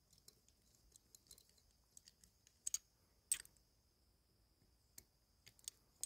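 Faint, scattered small metallic clicks and taps of a Darby-style handcuff being closed and latched onto a wrist, with a few sharper clicks about three seconds in and near the end.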